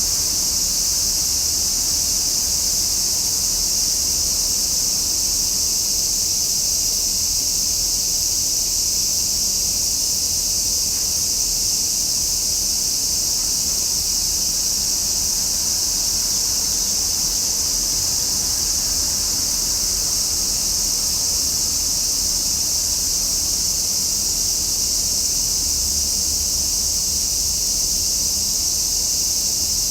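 A chorus of cicadas singing in summer: one continuous, even, high-pitched buzz that neither pauses nor changes.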